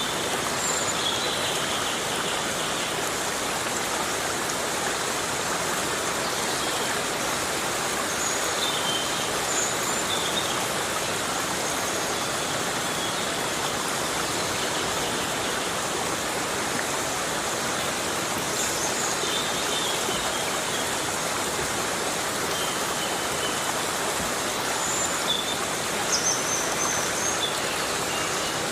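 Heavy rain falling steadily in a forest, a dense even hiss, with a few faint, brief high-pitched chirps now and then.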